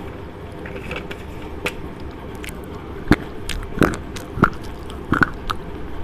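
Slate pencil being bitten and crunched right at a clip-on microphone: a handful of sharp, irregular snaps and crunches, the loudest from about halfway through.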